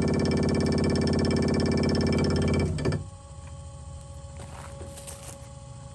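SaltDogg salt spreader's electric spinner motor running with a fast, buzzy rattle, turning its shaft without the spinner blade fitted. It is still a little noisy. About halfway through it cuts off, leaving only a faint hum.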